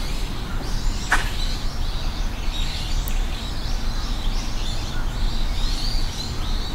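Outdoor ambience: birds chirping repeatedly over a steady low rumble, with one short click about a second in.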